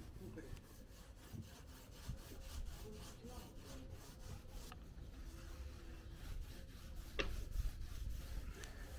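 Paint roller rolling topcoat onto a boat hull: a faint, quick repeated rubbing with one sharp click about seven seconds in.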